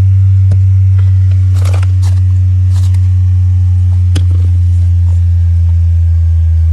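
A loud, steady low hum, with scattered light clicks and brief rustles of plastic parts and the camera being handled.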